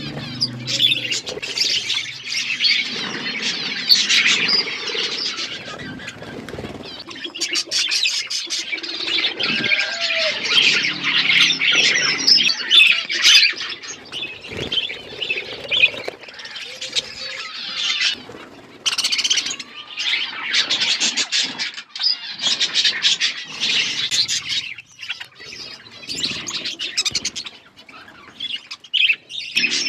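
A flock of budgerigars chattering continuously, a dense mix of warbling chirps and squawks.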